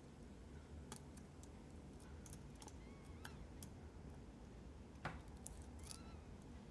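Faint, irregular ticks and clicks of a lock pick lifting the pins of an Assa 700 pin-tumbler lock, one click a little louder about five seconds in.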